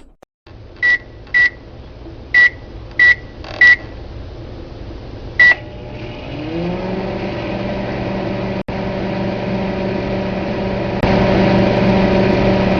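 Microwave oven keypad beeping six times, then the oven starting up: its hum glides up in pitch about six seconds in and settles into a steady hum that gets louder near the end.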